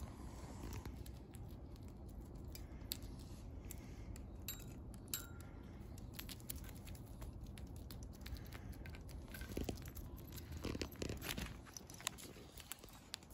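Low steady rumble with scattered soft clicks and rustles, a short chirp about five seconds in and another about nine seconds in, and a cluster of knocks and rustles around ten to eleven seconds.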